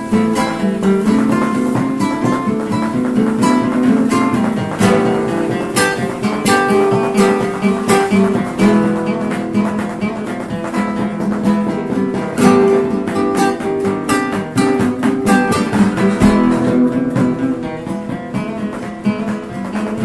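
Instrumental music: strummed acoustic guitar over drums, without vocals.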